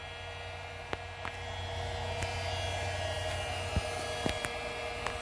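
Steady low electrical hum with a faint hiss, broken by a few light clicks and taps as the phone camera is handled and moved.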